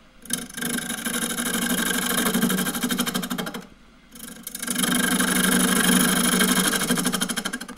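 A 3/8-inch spindle gouge cutting a warped, rough-turned olive-wood bowl spinning on a lathe, with a fast, even chattering rasp. It comes in two passes of about three seconds each, with a short break in between.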